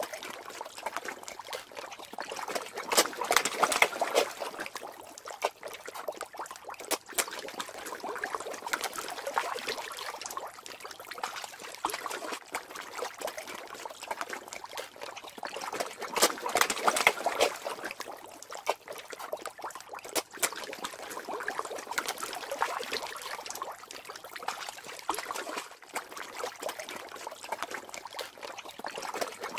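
Water bubbling and trickling with many small pops. It swells louder about every thirteen seconds.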